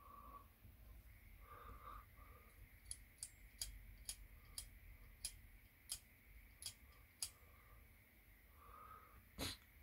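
A series of about ten small sharp clicks, roughly two a second, from the metal and plastic parts of a Badger Patriot 105 airbrush being handled and fitted together by hand, with faint rubbing between them and one louder knock near the end.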